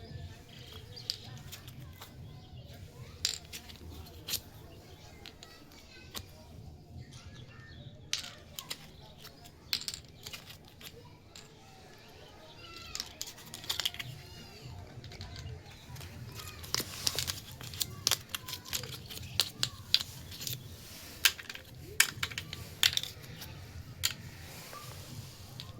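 Small plastic toy kitchen pieces being handled and set down: irregular light clicks and taps that grow busier in the second half.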